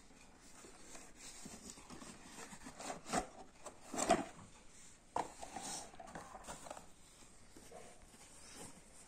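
Cardboard toy box rustling and a hard plastic toy car knocking against it as the car is worked out of the box by hand, with the loudest knocks a little after three and four seconds in.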